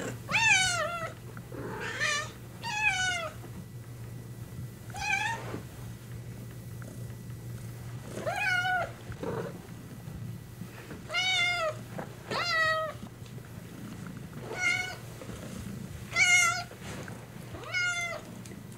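A kitten meowing repeatedly: about ten short, high meows that dip in pitch at the end, one to three seconds apart.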